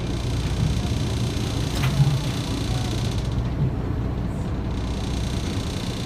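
Steady low rumble of a small boat underway, its engine and wind noise on the microphone, with one brief knock about two seconds in.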